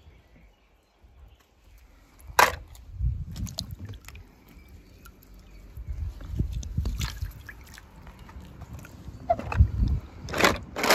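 Handling noise of small die-cast toy cars and water in a plastic tub: soft sloshing and rustling with a few sharp clicks of the cars knocking together or against the plastic.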